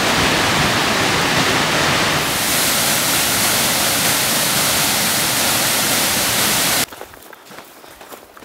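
Rainbow Falls, a tall waterfall, giving a loud, steady rushing roar of falling water. The roar turns hissier about two seconds in and cuts off suddenly about seven seconds in, leaving much quieter sounds.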